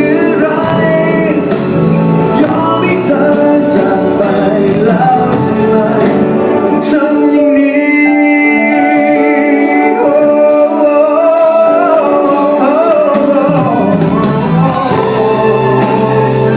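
A band playing a Thai pop ballad, with a melody line over guitar. The bass and drums drop out for several seconds in the middle and come back near the end.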